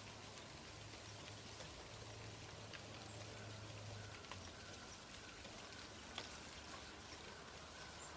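Falling dry leaves landing on a leaf-covered lawn: faint, scattered, irregular ticks over a soft steady hiss, with one slightly louder tick about six seconds in. A faint low hum runs through the first half.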